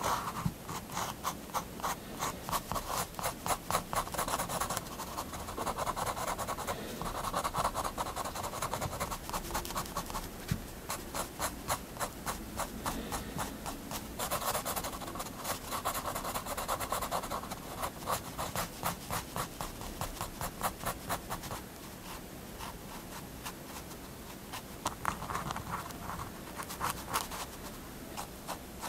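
Staedtler triplus 0.3 mm fineliner scratching on paper in rapid short hatching strokes, several a second. They come in bursts with brief quieter pauses.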